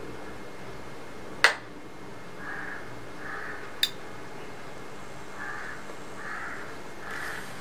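LM3886 DC-servo amplifier board powering up, with its speaker-protection relay clicking in: a loud sharp click about a second and a half in, then a lighter click a couple of seconds later.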